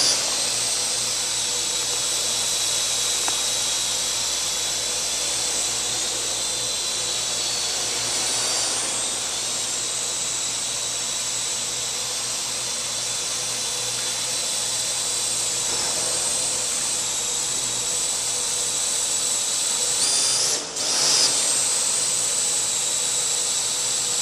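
Parrot AR.Drone quadcopter hovering, its four rotors giving a steady high-pitched whine. About twenty seconds in the motor speed briefly dips and surges.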